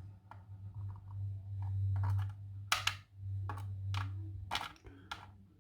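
A handful of sharp, light clicks and taps of small lock parts being handled, the sidebar, core and key of a dismantled Medeco 5S lock, over a low hum that swells and fades twice.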